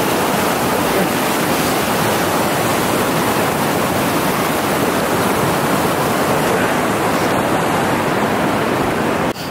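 Small mountain stream rushing and splashing over rocks close to the microphone: a loud, steady rush of water.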